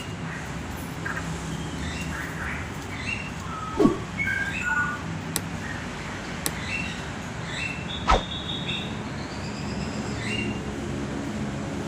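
Caged birds chirping and whistling in short, scattered notes over a steady low hum. A loud note glides downward about four seconds in, and a sharp click comes about eight seconds in.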